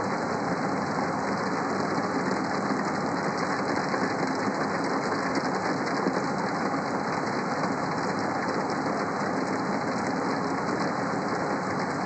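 Bose Sleepbuds 2 noise-masking sound "Window Seat": rain falling on a window, an even, unbroken hiss at a steady level with a low hum beneath it.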